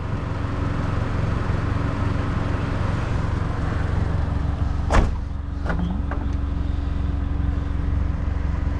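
A car engine idling steadily, with a sharp knock about five seconds in and a couple of lighter clicks after it.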